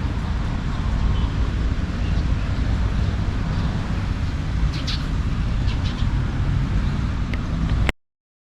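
Outdoor ambience: a steady low rumble with a few short high chirps around the middle, cutting off abruptly shortly before the end.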